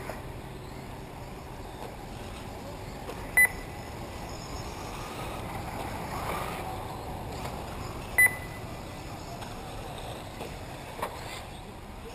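Electric 1/8-scale RC off-road buggies running on a dirt track: a steady hiss of motors and tyres that swells about six seconds in as cars pass nearer. Two short, high electronic beeps, about five seconds apart, are the loudest sounds.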